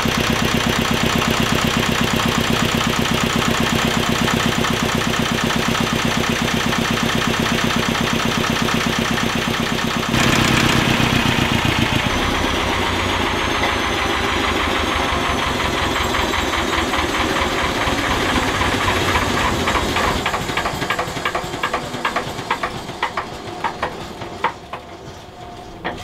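Lister FR2 two-cylinder diesel engine driving a generator, running steadily with a rapid knocking beat. About halfway through, its pitch begins to fall and it slows, the firing strokes becoming separate and spacing out as it runs down toward a stop near the end.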